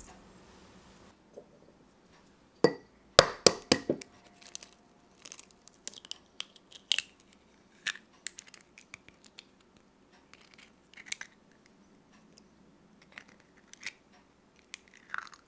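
A raw egg cracked on the rim of a ceramic bowl: a quick cluster of sharp knocks and cracks about three seconds in. Then scattered small crackles of eggshell while the egg is separated and the white drips into the bowl.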